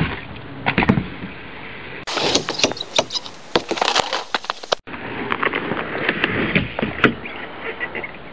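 BMX bike riding a skatepark quarter pipe: tyres rolling on the ramp under a steady haze of camera-mic noise, with repeated knocks and clicks of the bike hitting and landing on the ramp. The sound changes abruptly twice where separate clips are cut together.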